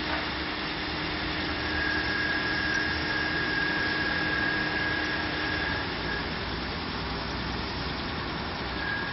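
Ford Fiesta engine idling after a cold start, with a steady high-pitched whine over it: the noise the car makes for about a minute and a half after starting from cold each morning. The whine drops out about six seconds in and comes back near the end.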